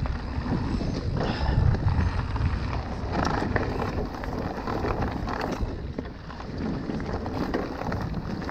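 Wind buffeting the camera microphone as a mountain bike rolls fast down a dirt singletrack, with tyre noise on the trail and short knocks and rattles from the bike over bumps.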